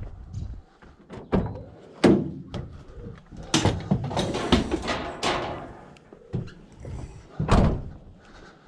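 Pieces of scrap metal being picked up and chucked in: a few separate knocks, a longer clattering stretch around the middle, and one heavy thump near the end.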